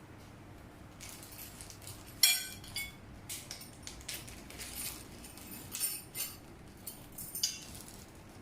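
Hard parts of a tiered cake plate stand clinking as they are handled and fitted together. Quiet at first, then from about two seconds in a string of sharp clinks, some with a brief ring. The loudest is the first.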